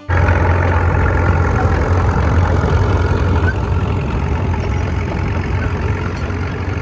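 Tractor engine idling close by: a loud, steady low running note with a rough, noisy edge that eases off slightly toward the end.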